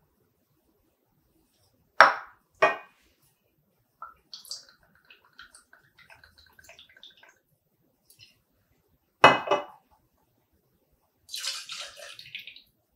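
Metal clinks of a stainless steel jigger and shaker tin: two sharp clinks, then a thin stream of spiced rum from a bottle pour spout into the jigger, another sharp clink, and near the end the rum poured from the jigger into the stainless shaker tin.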